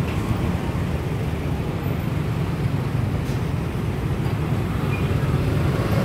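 Steady low engine rumble and road noise of a songthaew (open-backed pickup baht bus) moving slowly through street traffic, heard from on board.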